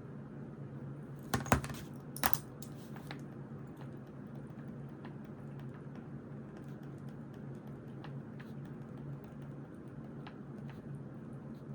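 Desk study sounds: a pen and stationery knocking sharply on the desk twice about one and a half and two and a quarter seconds in, then faint scattered ticks of writing and handling, over a steady low hum.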